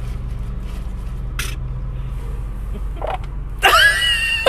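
Steady low drone of a running vehicle, with a short hiss about a second and a half in. Near the end a loud, high-pitched cry with gliding pitch cuts in.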